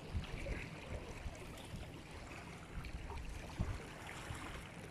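Seaside ambience: water washing gently against the rocks of a breakwater, with wind rumbling irregularly on the microphone.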